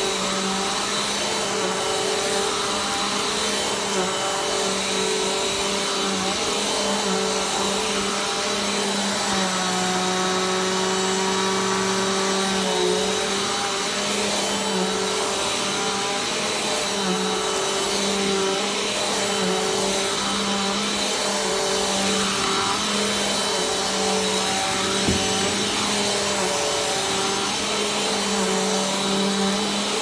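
Upright vacuum cleaner running steadily as it is pushed over carpet, its motor hum wavering slightly in pitch as the head moves. One short click late on.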